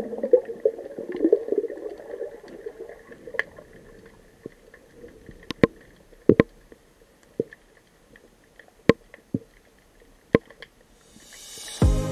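Underwater bubbling and gurgling that fades out over the first three seconds or so, followed by scattered sharp clicks heard through the water. Music comes in at the very end.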